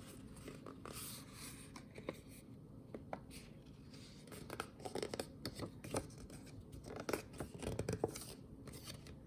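Thick printed paper being folded and handled: faint rustling and crinkling with a few short creasing sounds.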